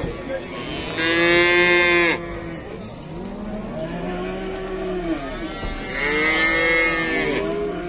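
A calf bawling twice in loud, high-pitched calls about a second long each, one early on and one near the end.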